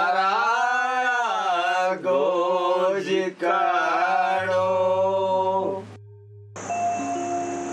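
A man singing a slow, drawn-out melody over a steady low drone; the voice stops about six seconds in, and after a brief pause instrumental music with long held tones comes in.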